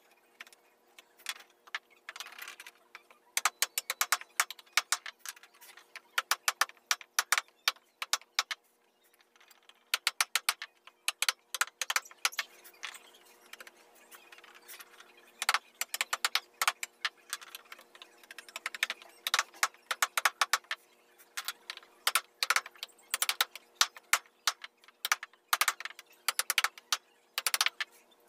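Steel wood-carving chisel driven into wood by a small hammer: quick runs of light, sharp taps with short pauses between the runs.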